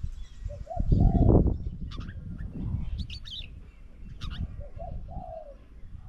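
Spotted dove cooing twice, short low calls, with sharp high chirps from smaller birds in between, over bursts of low rumble that are loudest about a second in.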